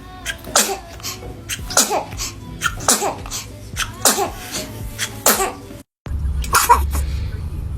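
A baby sneezing again and again: a string of short, sharp sneezes about every half second, broken once by a brief silence, with two more sneezes after it.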